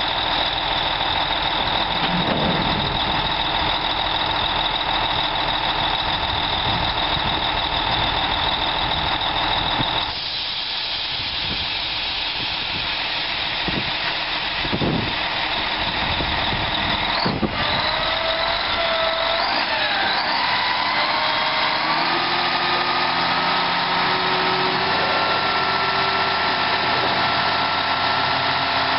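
Mack E6 inline-six diesel of a 1985 Mack R686ST dump truck running at idle. A little past halfway there is a sharp click, then a wavering whine that settles into steady higher tones as the hydraulic hoist raises the barrel dump bed.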